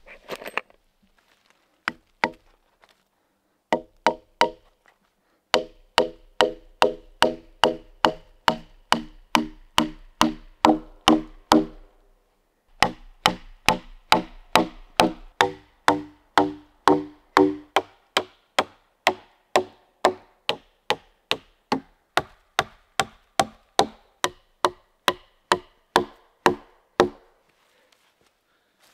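A hammer driving nails into log ladder rungs: steady strikes about three a second. Each strike rings with a note that climbs in pitch as the nail sinks in, with a short pause about halfway through.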